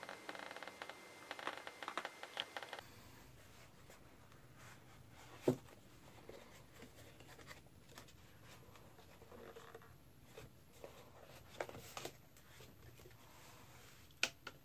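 Faint handling sounds of a DJI Osmo Mobile gimbal and its parts being lifted out of a foam-lined cardboard box: light rustling and small clicks, then scattered knocks, the sharpest about five seconds in and another near the end.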